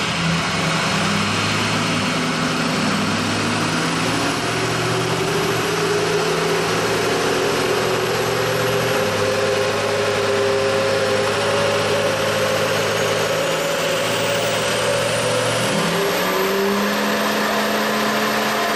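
Ford 6.0L Powerstroke V8 turbodiesel pulling under load on a chassis dyno, its engine note rising as road speed climbs. Near the end the revs rise sharply as the full-throttle pull begins.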